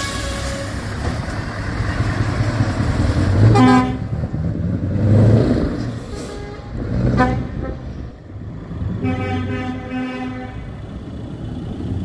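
Scania truck pulling away with its diesel engine running, and truck horns sounding: short toots about three and a half and seven seconds in, then a longer blast near the end.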